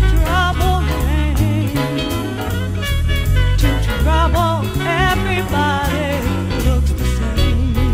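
Recorded song with drum kit and bass under a wavering lead melody with vibrato, during a break between sung lines.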